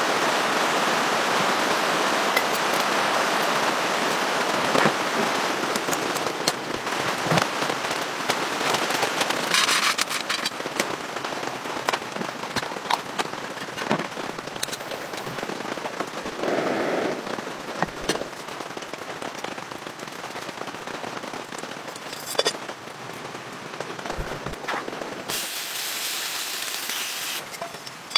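Steady heavy rain for the first few seconds, then a run of sharp clicks, knocks and pops from camp cookware being handled and a crackling wood fire. A short hiss comes near the end.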